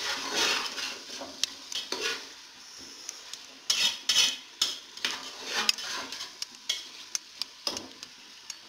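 Metal spatula scraping and clinking against an aluminium pressure cooker as chicken pieces with curry leaves and garam masala are stirred and fried in oil, with a light sizzle underneath. The strokes come irregularly and thin out to occasional clicks toward the end.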